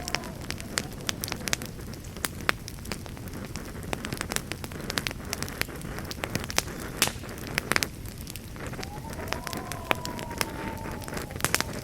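Campfire burning, with irregular sharp pops and crackles of the wood over a steady low rumble of flames. Near the end a faint whistling tone rises and then slowly falls for a few seconds.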